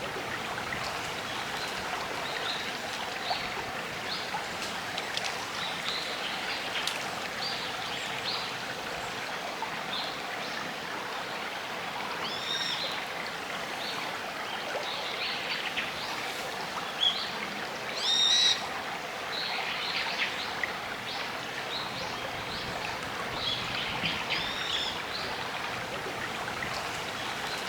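A shallow gorge river flowing over stones with a steady babble, and birds calling over it now and then in short rising-and-falling notes. The loudest call comes about two-thirds of the way through.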